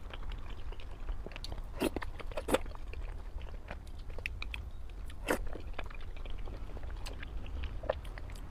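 A person chewing a mouthful of sweet and spicy pork and rice close to the microphone: a run of wet mouth clicks and smacks, a few of them sharp and loud, over a steady low hum.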